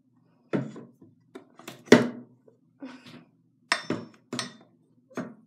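Hard plastic hairbrush handle knocking against a metal sink faucet lever while trying to turn the water on: a string of irregular knocks and clacks, the loudest about two seconds in.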